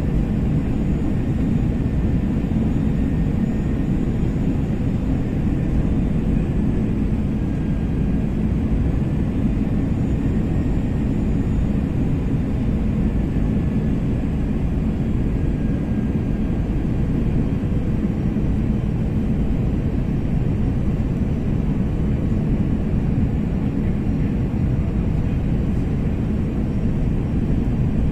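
Cabin noise of an Airbus A320-family airliner descending on approach, heard from a window seat: jet engines and rushing air as a low, even rumble that holds steady throughout.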